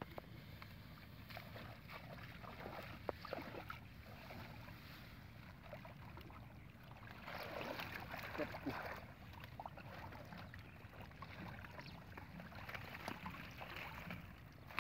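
Splashing and sloshing of shallow muddy water as a person wades and moves bundles of dry palm fronds, with rustling and crackling of the fronds. The splashing is loudest about halfway through and again near the end, over a steady low wind rumble on the microphone.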